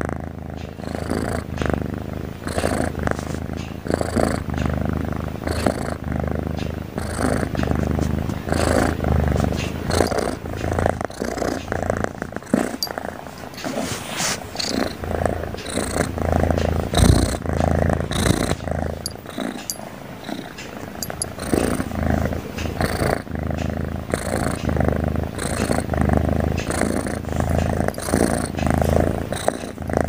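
Tabby cat purring noisily while dozing, a steady low rumble that swells and fades with each breath, about once a second.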